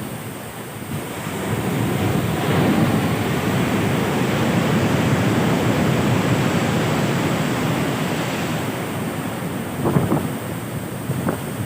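Large ocean waves breaking on the shore. The surf swells about a second in, stays loud for several seconds, then eases, with gusts of wind buffeting the microphone near the end.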